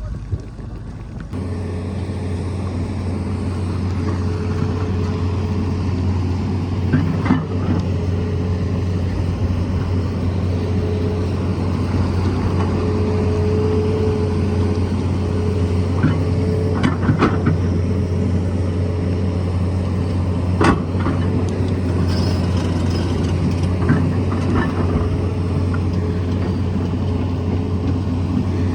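Tata Hitachi excavator's diesel engine running steadily, with a few sharp knocks while it works rock, the loudest about two-thirds of the way through.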